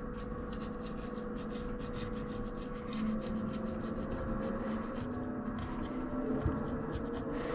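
Scraping with a razor blade in quick, repeated short strokes, over a steady background hum.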